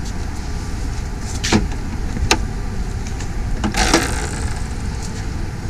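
A few sharp clicks and knocks, about one and a half, two and a half and four seconds in, over a steady low outdoor rumble.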